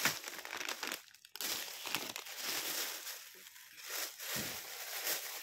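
Plastic food packaging crinkling and rustling as it is handled, in stretches with a short pause about a second in.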